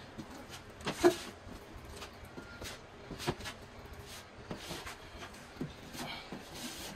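Scattered light knocks and scuffs from hand work on a wall being patched with compound, the loudest about a second in, over faint room noise.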